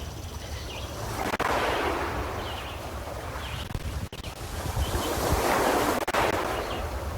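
Small lake waves washing against the shore in two swells of splashing, one just over a second in and one about five seconds in, over a steady low rumble of wind on the microphone.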